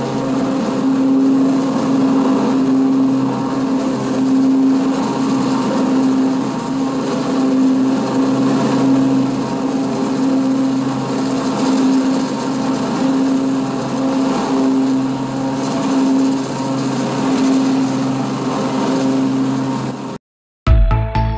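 Husqvarna TS248 XD riding lawn mower running steadily while mowing, a constant engine hum. Near the end the sound cuts off abruptly and music begins.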